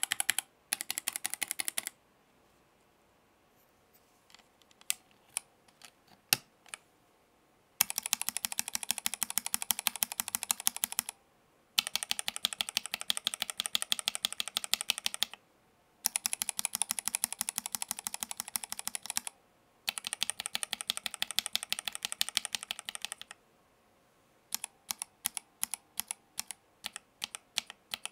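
Mechanical keyboard with linear switches (ZoomTKL, FR4 plate, GMK keycaps) being typed on: a few scattered keystrokes, then four bursts of fast typing, each about three seconds long with short pauses between. Near the end come single key presses about two a second.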